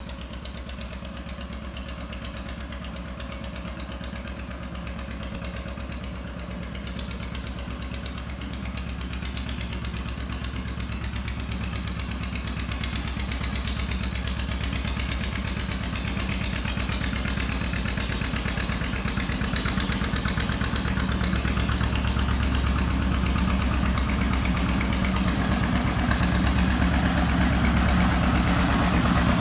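John Deere 630 tractor's two-cylinder engine running with its steady popping beat as the tractor drives up, growing steadily louder as it closes in.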